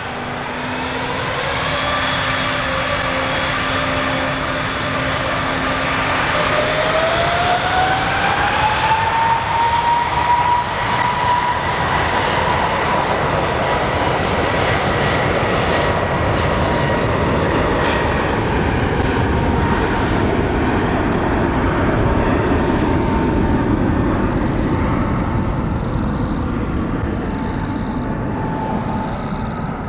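Airbus A320neo jet engines at take-off power: a whine rising in pitch over several seconds as the engines spool up, then a loud steady roar, the whine slowly falling in pitch later on.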